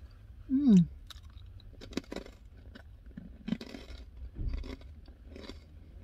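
A person chewing crunchy cauliflower crisp crackers, a scatter of short crunches, after a brief falling 'mm' hum from her voice about half a second in.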